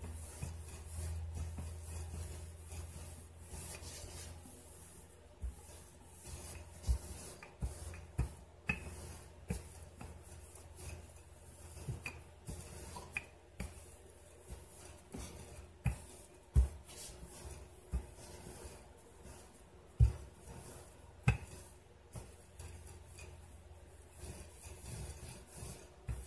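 Wooden rolling pin rolling back and forth over floured dough on a granite countertop, a soft repeated rubbing, broken by irregular sharp knocks.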